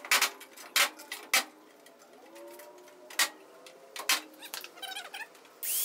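Sharp metallic clicks and knocks from sheet metal and tools being handled at a rusted truck cowl, about five in all, with faint squeaky glides between them. Just before the end a drill starts up with a loud high whine, working on the cowl's spot welds.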